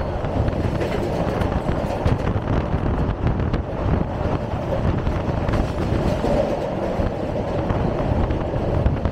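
Passenger train running along the track, a steady rumble of wheels on rails heard from the open carriage doorway.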